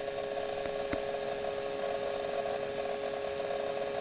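Acer Predator 17 gaming laptop's coil whine under heavy CPU/GPU load: a steady two-tone whine with a rough, fluttering, grinding buzz, picked up close against the back vent. It is electrical, not mechanical, and was caused by a faulty motherboard. A faint click about a second in.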